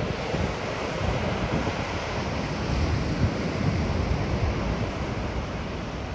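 Ocean surf breaking and washing ashore, with wind buffeting the microphone in irregular low gusts.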